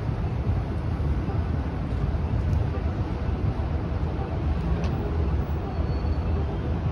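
Night-time city street ambience: a steady low rumble of traffic and engines, with a few faint clicks.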